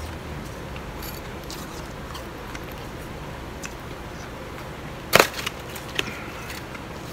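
Metal spoon scraping and clinking against a glass bowl while scooping blended ice, with one sharp loud scrape a little past the five-second mark and a smaller click about a second later, over a steady hiss.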